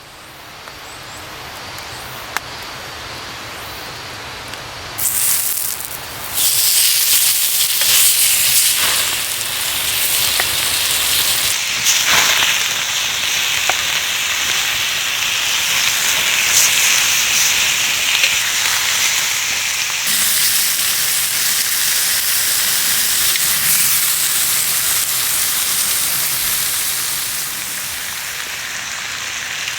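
Food sizzling hard in a hot frying pan. The hiss rises gently at first, then jumps sharply louder about five seconds in and again a second later, as if something was dropped into the hot fat, and stays loud and steady after that.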